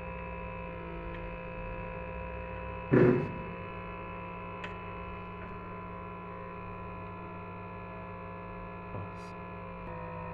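Steady electrical hum from an LCD glass separator machine, the heated plate that holds the display by vacuum suction. A single sharp knock comes about three seconds in, with a couple of faint ticks later.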